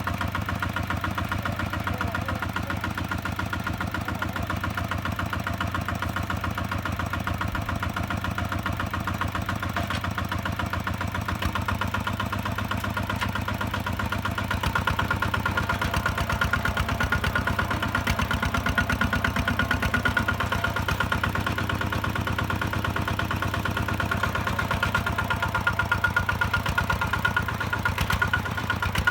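Kubota ZT-150 single-cylinder diesel engine of a two-wheel tractor running steadily with a rapid, even chugging, getting somewhat louder about halfway through.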